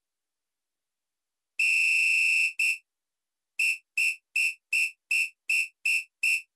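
Electronic beeps at one high pitch: one long beep of about a second, a short beep, then after a pause eight quick beeps at a steady rate of between two and three a second.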